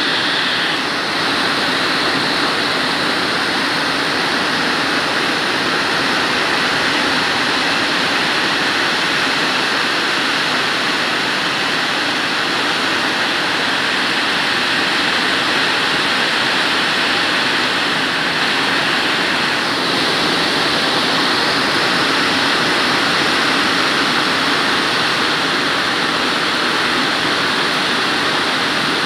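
Heavy downpour: dense, steady rain falling on trees and a roof, an even hiss with no let-up.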